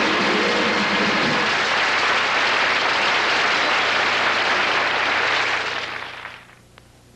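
Theatre audience applauding, with the band's last held chord dying away under it in the first second or so; the applause fades out near the end.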